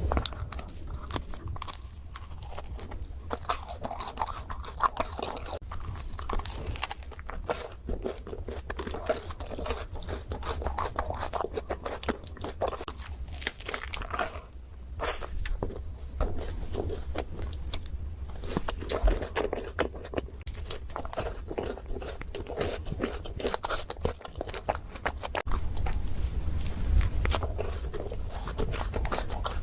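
Close-miked eating of chocolate desserts: continuous chewing with many sharp, crisp crunches as bites are taken.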